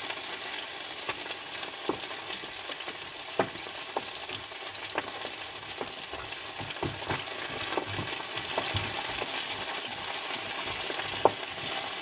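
Sea bream and asparagus frying together in a pan: a steady sizzle with scattered sharp pops, the loudest near the end.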